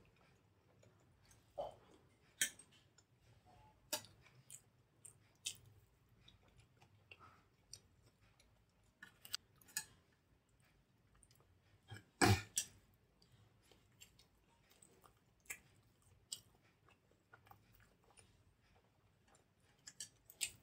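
Close-miked chewing and wet mouth sounds of soft idli with sambar and coconut chutney, broken by scattered sharp clicks of a steel spoon and fingers against steel bowls and plate. A louder knock comes about twelve seconds in.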